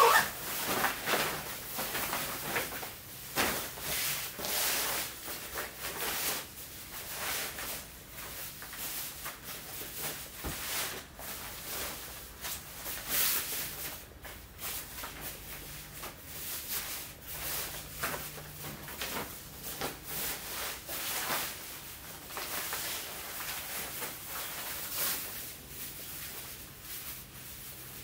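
Rain jacket and rain trousers rustling and swishing in irregular strokes as they are lifted and folded by hand.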